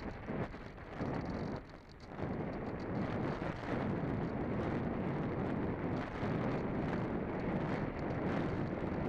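Wind rushing and buffeting across the microphone, gusty for the first two seconds with a brief lull about two seconds in, then a steady rush.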